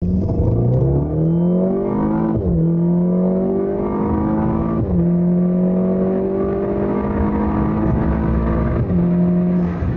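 Golf R's turbocharged 2.0-litre four-cylinder accelerating hard under about 24 psi of boost, heard from inside the cabin. The engine note rises steadily in pitch and drops sharply at each upshift, about two and a half and five seconds in, then again near nine seconds.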